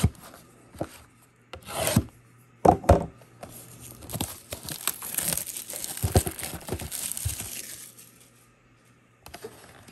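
Plastic shrink wrap on a trading-card blaster box being scraped at and torn open: a few sharp scrapes, then about four seconds of steady crinkling as the wrap is peeled off, dying away about a second before the end.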